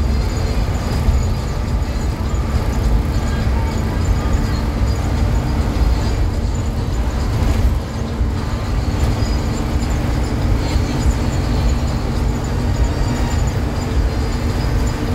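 Isuzu FRR33 bus on the move, heard from inside: a steady engine drone at constant speed over a heavy low road rumble, without revving.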